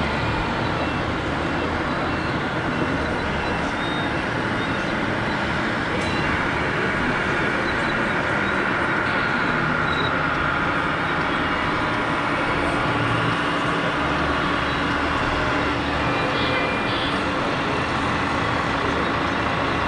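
Steady din of a busy exhibition hall: crowd chatter mixed with the whine of the electric motors and hydraulic pumps of radio-controlled model trucks and excavators. A higher whine stands out for a few seconds in the middle.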